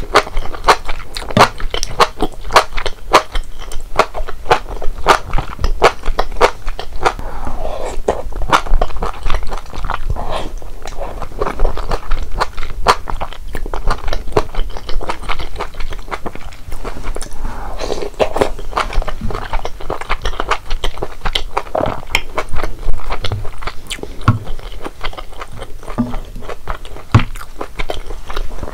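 Close-miked mouth sounds of someone eating malatang: steady chewing and biting with many quick, wet clicks.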